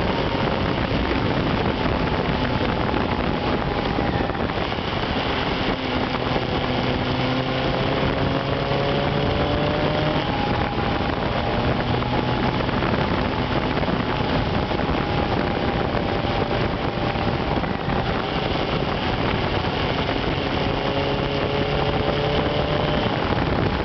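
A 1992 Honda Nighthawk 750's air-cooled inline-four engine running while riding, its pitch drifting gently up and down, under a steady rush of wind on the microphone.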